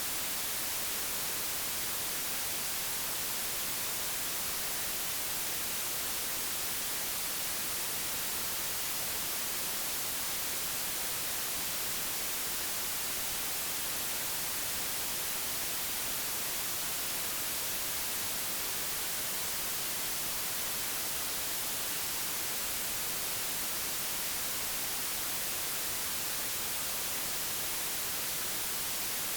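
Digitally generated white noise: a steady, even hiss that does not change.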